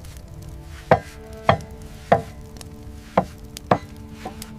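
Blacksmith's hammer striking metal on an anvil, a sharp blow roughly every half second, with steady tones held underneath.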